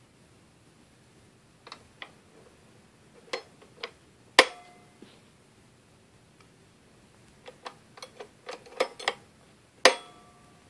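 Chrome wire beaters clicking and clinking against the metal sockets of a 1970s GE stand mixer's head as they are pushed in. Two sharp, ringing metallic clicks, one about four seconds in and one near the end, mark each beater snapping into place, with lighter rattling clicks between them.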